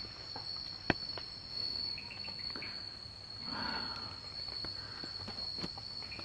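Night insects chirring in one steady, high-pitched drone, with a sharp click about a second in and a brief rustle midway.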